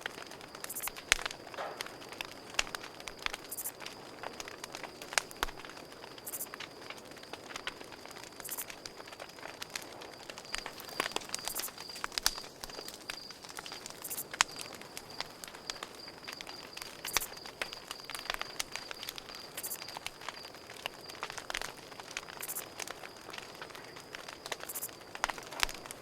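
Campfire crackling, with sharp pops at irregular moments, over a steady high cricket trill.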